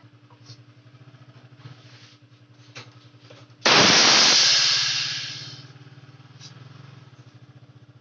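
Hermetic refrigerator compressor humming steadily. About three and a half seconds in, a loud burst of hissing gas rushes out of the open refrigerant pipe and fades over about two seconds, as the compressor blows trapped oil out of the evaporator line.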